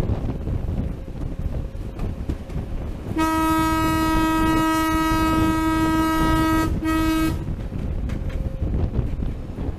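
Horn of a Sri Lanka Railways Class W3 diesel locomotive, heard from aboard: one long steady blast of about three and a half seconds, a brief break, then a short blast, sounded for a level crossing ahead. Wind noise and the rumble of the moving train run underneath.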